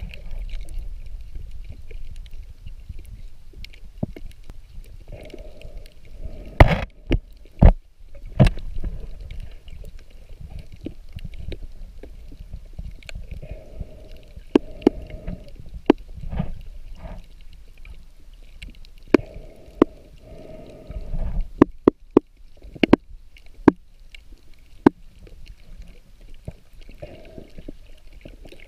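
Underwater sound heard through a camera's waterproof housing: a low, muffled rumble of moving water with scattered sharp clicks and knocks, several of them loud. A quick run of clicks comes about three-quarters of the way through.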